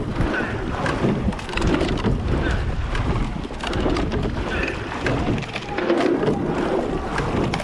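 A racing rowing eight under way: water rushing along the hull and past the oar blades, with wind buffeting the microphone and the knock of oars and rigging with each stroke.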